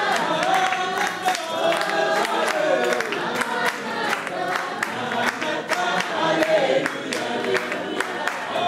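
A group of people singing together, with rhythmic hand clapping at about three claps a second.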